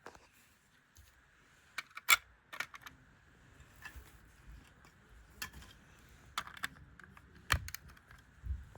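Plastic LEGO bricks clicking and clattering as they are handled and pressed together: a scattering of sharp clicks, the loudest about two seconds in.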